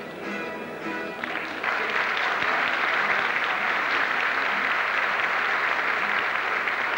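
A plucked-string rondalla of bandurrias, laúdes and guitars plays briefly. About a second in, loud, steady audience applause breaks out and covers it.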